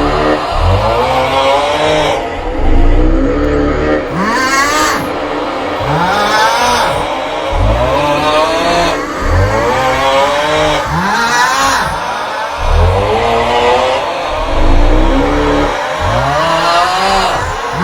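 The 'aughhh' snoring meme sound looped over and over: a loud snore with a drawn-out, wavering 'aughhh' cry that repeats about every two seconds over a low rumble.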